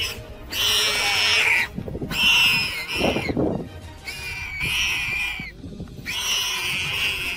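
Warthog squealing in distress while a leopard holds it down: four long, high, wavering squeals of about a second each, with a lower grunting burst about three seconds in.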